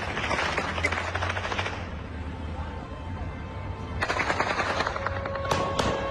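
Bursts of automatic gunfire: a rapid rattle of shots for about the first two seconds, a second burst about four seconds in, and two louder single shots near the end.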